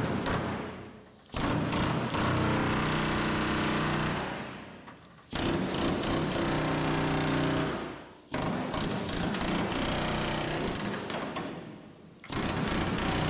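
Pneumatic air hammer with a flat chisel bit hammering rapidly against the steel quarter panel of a 1967 Shelby GT500, chiselling the panel off along its seam. It runs in bursts of about three seconds, each starting suddenly, with brief pauses between.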